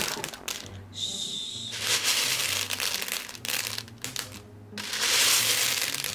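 Plastic pony beads rattling and clattering in a clear plastic bowl as a hand stirs and scoops through them. The rattle eases off briefly twice.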